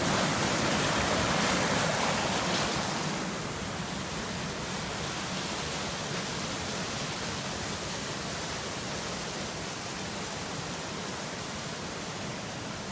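Muddy floodwater from a creek in full flood rushing in a steady noise, louder for the first three seconds and then dropping to a lower, even level.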